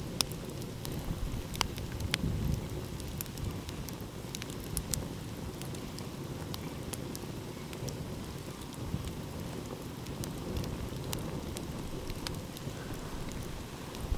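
Wood fire crackling, with scattered sharp pops at irregular intervals, over a steady low rumble of sea waves.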